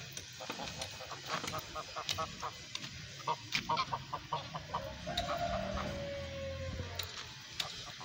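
Flock of domestic geese calling with short honks and gabbling as they walk.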